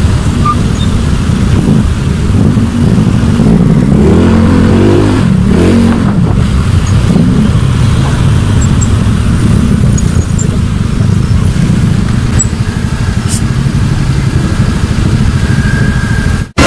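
Motorcycle engine running in traffic, loud, its pitch rising and falling several times near the middle as the throttle is opened and closed.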